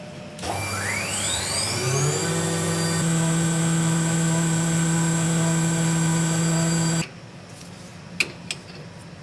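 CNC milling machine spindle spinning up with a rising whine, then running at speed with a steady whine; it cuts off abruptly about seven seconds in, followed by a single click.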